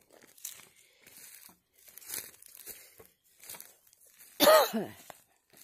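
Footsteps crunching through dry grass and leaves, a noisy step every half second or so. About four and a half seconds in there is one short, loud cry with a falling pitch, the loudest sound here.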